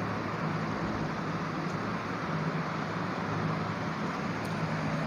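Steady background noise: an even hiss with a low, constant hum underneath.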